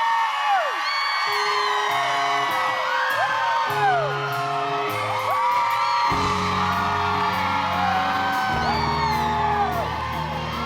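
Live rock band playing the opening of a song, the low notes growing heavier about six seconds in, with audience members whooping and screaming over it throughout.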